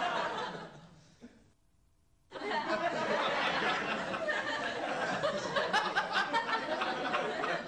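Several people laughing and chattering, fading out to a brief gap of near silence about a second and a half in, then starting up again.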